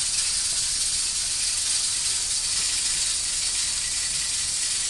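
A steady hiss, even and unbroken, strongest in the upper range.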